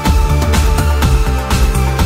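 Electronic background music with a steady beat and a heavy bass.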